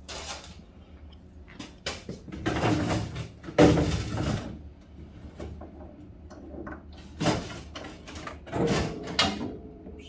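Irregular knocks, clatters and scrapes of refrigerator parts being handled, including the plastic panel in the freezer compartment, the loudest about four seconds in, over a steady low hum.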